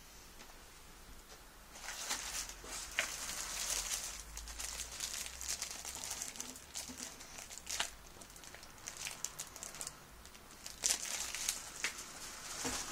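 Crinkling and rustling of a shrink-wrapped magazine and packing being handled, with a few sharp clicks, in two stretches: one from about two seconds in lasting several seconds, and a shorter one near the end.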